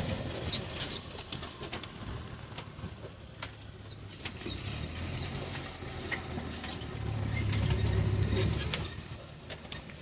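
Low hum of a van's engine with scattered small clicks and creaks. The hum grows louder about seven seconds in and drops back near the end.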